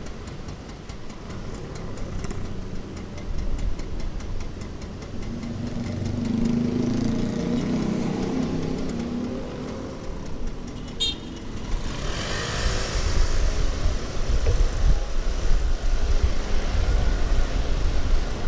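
Motorbike engines, the old Vespa Super 150's two-stroke among them, idling at a standstill and swelling as they rev up around the middle, then pulling away in the last third with wind rumbling on the microphone.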